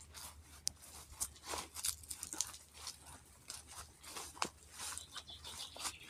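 Footsteps crunching and rustling through dry leaves and grass, an irregular crackle about once or twice a second.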